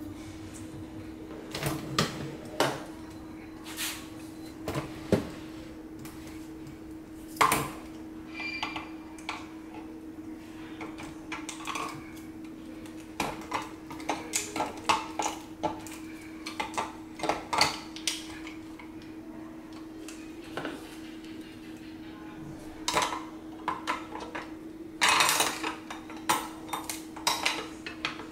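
Irregular clicks, clinks and knocks of hard metal and plastic parts as the battery cover is handled and pressed into place on the full-metal Huina 1580 RC excavator, with a quick run of clicks near the end. A steady low hum runs underneath.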